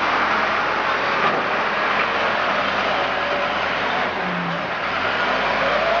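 A heavy machine's engine running steadily under a dense, even noise, likely the engine of a mobile cold-asphalt mixer at work.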